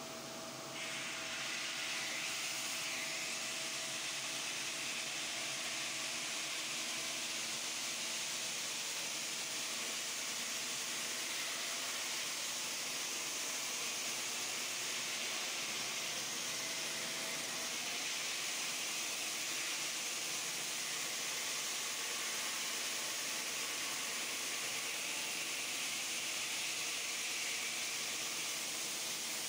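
Water-cooled gantry stone saw cutting through a stone block: a steady, even hiss of blade and water spray, with a faint whine coming and going.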